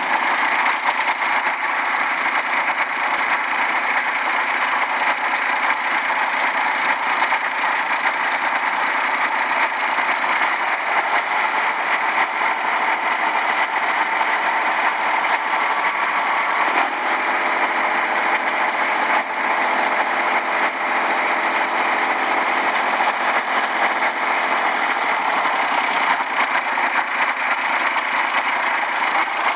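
Farm tractor engine running steadily while it works a post-hole borer mounted on its forklift. The engine's note shifts about halfway through.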